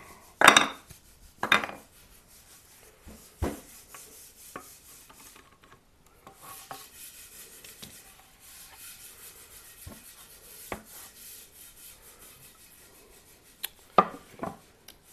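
Wooden bass guitar parts and tools handled on a workbench: a few sharp knocks of wood set down and shifted, two near the start and two near the end, with light rubbing and scraping in between.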